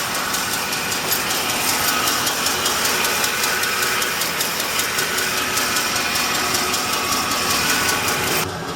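2007 Ford F-150's 5.4L 3-valve Triton V8 running at idle with a rapid, even ticking; the ticking was traced to failing coil packs and spark plugs. Near the end the ticking drops away suddenly and a lower running sound comes forward.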